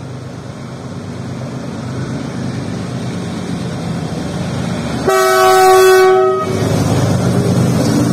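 WDG4G diesel-electric locomotive approaching on the next track, its engine rumble growing louder. About five seconds in it sounds its multi-tone horn once, for just over a second.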